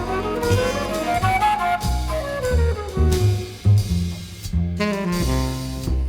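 Background jazz music with a saxophone line over bass and drums.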